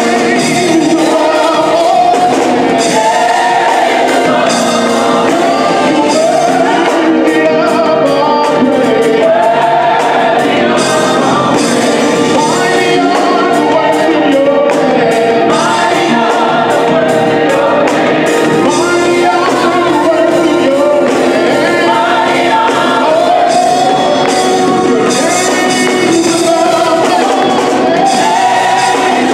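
Gospel choir singing with a live band of electric bass, drums and organ, with cymbals ticking throughout.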